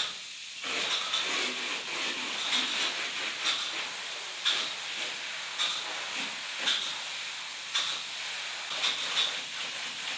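Spray foam gun spraying closed-cell polyurethane foam onto a wall: a steady hiss with brief louder surges about once a second.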